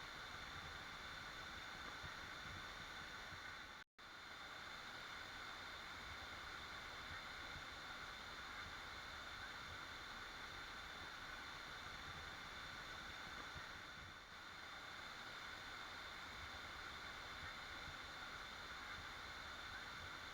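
Steady, even rushing of a waterfall, cutting out to silence for an instant about four seconds in.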